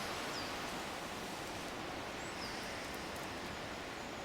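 Steady outdoor woodland background hiss, with two faint, short, high bird chirps falling in pitch: one about half a second in and one near the middle.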